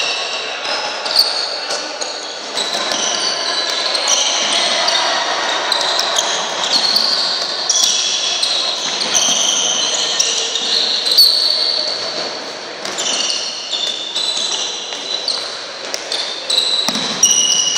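Sports shoes squeaking on a wooden court in a sports hall, with a handball slapping on the floor and into hands, amid players' calls echoing in the hall.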